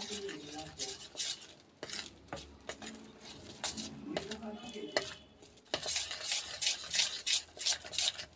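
Gram-flour batter being mixed by hand in a steel bowl: wet, irregular scraping and slapping strokes against the metal, busier and louder over the last three seconds.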